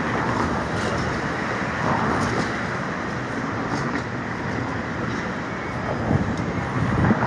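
Steady street traffic noise, a continuous rumble of passing vehicles.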